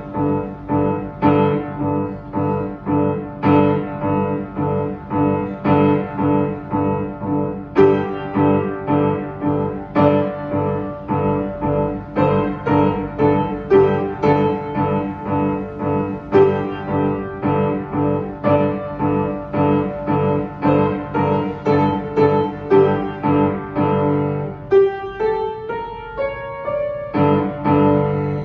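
Upright piano played solo: steady repeated chords over a sustained low bass, about two strikes a second. About three seconds before the end the bass falls away for a lighter run of higher single notes, then the full chords return.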